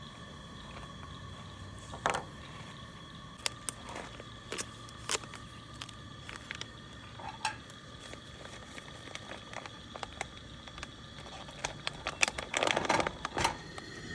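Cookware being handled while cooking: scattered light clicks, knocks and scrapes of pots and utensils, clattering more busily near the end.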